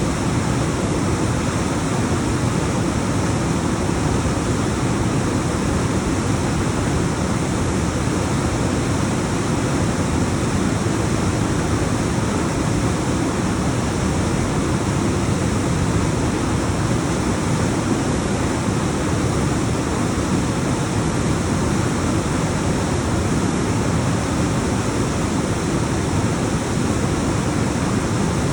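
Alpine waterfall: a steady, loud rush of water tumbling down rocks, with a full low roar.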